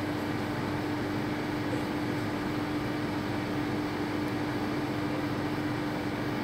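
Steady mechanical hum and hiss with one constant low tone.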